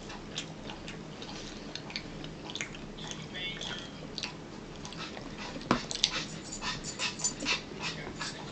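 A dog whimpering as it begs for food, over short clicks and knocks of a metal spoon against a plastic bowl, busiest in the second half with one louder knock.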